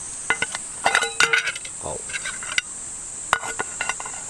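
A metal utensil clinking and scraping against a metal cooking pot: several clusters of sharp clinks, each with a short ringing. A steady high-pitched insect drone runs underneath.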